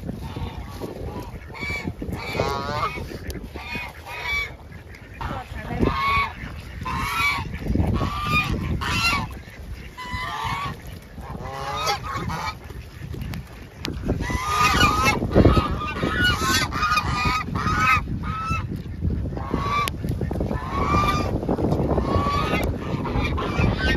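Canada geese honking repeatedly, short calls coming about one or two a second and growing busier in the second half.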